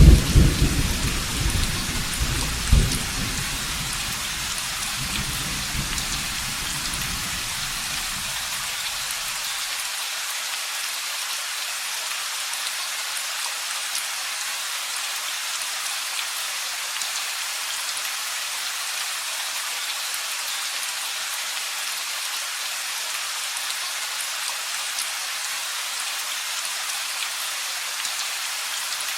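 Steady heavy rain with a rolling thunderclap. The thunder is loudest at the start, gives another crack about three seconds in, then rumbles away over the next several seconds, leaving only the steady hiss of rain.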